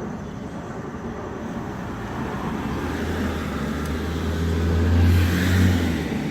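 A motor vehicle passing by, its engine hum and road noise building to a peak about five seconds in, then fading.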